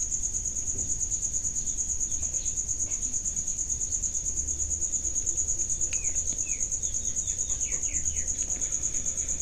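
Crickets chirping steadily: a high, even trill that pulses rapidly and never stops.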